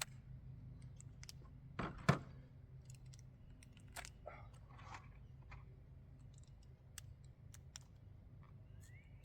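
Cartridges being pushed into a gun magazine by hand: scattered small clicks, with a louder clack about two seconds in.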